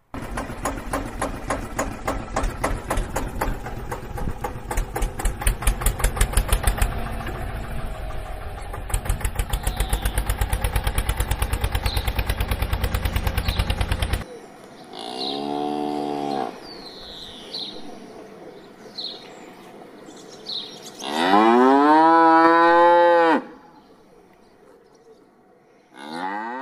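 A tractor engine running with a fast, even pulse, cutting off suddenly about halfway. Then a cow moos: a short moo, a long loud moo, and another starting near the end, with faint high chirps in between.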